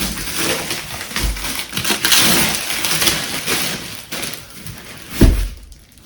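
Plastic wrapping crinkling and rustling as it is handled and pulled off a packaged sleeping pad, most intense about two to three seconds in, with a dull thump a little after five seconds.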